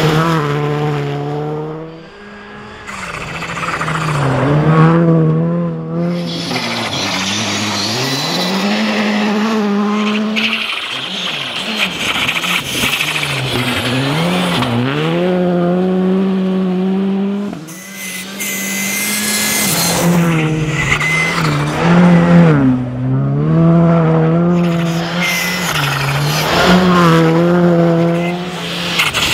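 A Skoda Fabia R5 rally car's turbocharged 1.6-litre four-cylinder engine is revved hard and shifted through the gears on several passes. Its pitch repeatedly climbs and drops, and the sound fades briefly about two seconds in and again past the middle.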